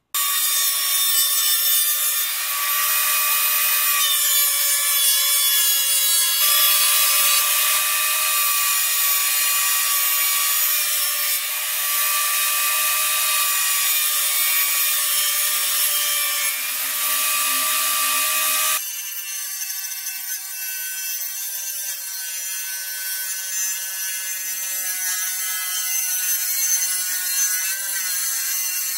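Benchtop thickness planer running and planing poplar boards, a loud steady mechanical whine. About 19 seconds in it gives way abruptly to a slightly quieter, steady whine from a circular saw mounted under a table, ripping narrow bars from a 3 × 5 cm length of wood.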